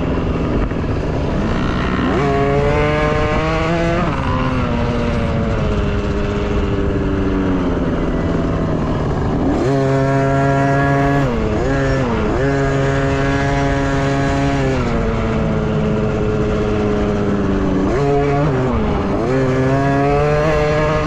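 Dirt bike engines revving on an off-road race course. The pitch climbs under acceleration, holds, then drops off sharply several times, with quick dips around the middle and near the end.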